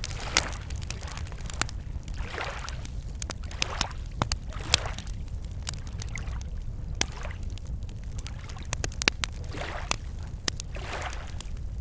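Wood campfire crackling with many sharp pops, over small lake waves lapping against the shore in soft swells every few seconds.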